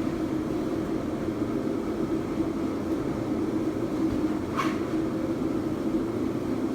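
A steady background hum, with one brief high squeak about four and a half seconds in.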